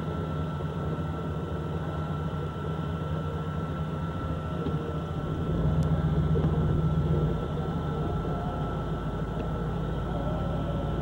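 A vehicle running with a steady low rumble that swells for a couple of seconds about halfway through, under a thin, steady high-pitched whine.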